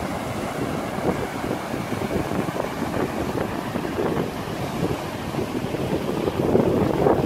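Strong storm wind buffeting the microphone, with surf washing over the sand; the rush swells louder near the end.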